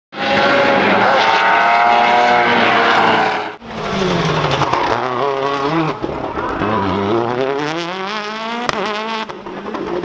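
A Citroën DS3 rally car's turbocharged four-cylinder engine revving hard, its pitch sweeping down and back up again and again through braking and gear changes, with sharp cracks from the exhaust near the end. Before it, a separate engine note runs for about three and a half seconds and cuts off suddenly.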